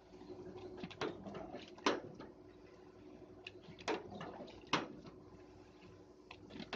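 Double-die paper dona making machine pressing: sharp clanks as the forming dies come down, four times, in pairs about a second apart, over a steady hum.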